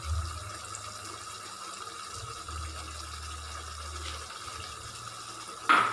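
A chicken curry simmering and bubbling in a pan, with a steady faint tone in the background. Near the end there is a short, loud knock or scrape.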